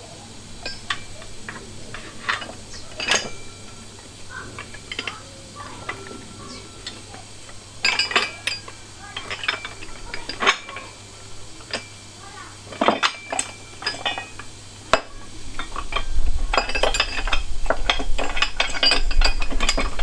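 Steel engine-stand bracket, bolts and washers clinking and tapping against each other and the engine's alloy crankcase as the bracket is fitted by hand. The clinks come irregularly, and in the last few seconds they grow busier, over a low rumble of the parts being handled.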